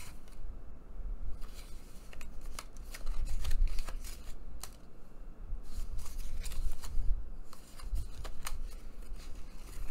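Stiff paper panels of a handmade fold-out card rustling, sliding and clicking as they are flipped over and over by hand, with soft low thuds as the card is handled.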